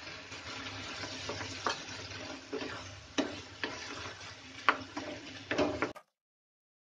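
Wooden spatula stirring mashed boiled potatoes into a sizzling tomato-onion masala in a nonstick pan, with a steady sizzle and several sharp knocks of the spatula against the pan. The sound cuts off suddenly about six seconds in.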